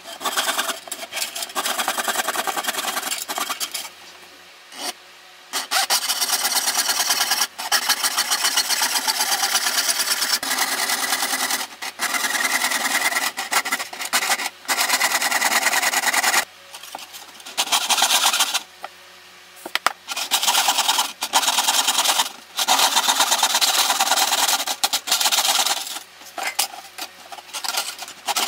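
Fret saw blade cutting thin 0.3 mm brass sheet, sped up so the strokes run together into a fast, rasping scratch, stopping briefly a few times.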